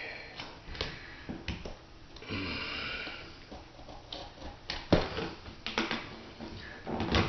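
Sheet vinyl flooring being handled and trimmed with a utility knife: scattered clicks and rustles, a scraping stretch about two seconds in, and a sharp knock near five seconds.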